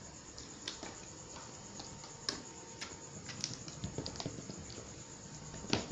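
Homemade glue slime being squeezed and kneaded by hand, making scattered small clicks and pops, about half a dozen, with the sharpest near the end. A slime that clicks like this is taken as a sign that it has set properly.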